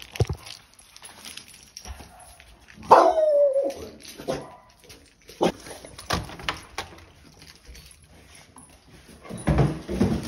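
A dog gives one loud whining yelp about three seconds in, its pitch sliding down, amid scattered clicks and knocks, with a louder burst of knocking near the end.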